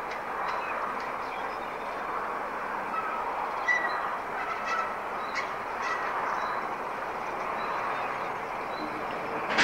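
BR Class 14 diesel-hydraulic shunter D9516 running slowly over pointwork with a steady drone, with short high chirps several times.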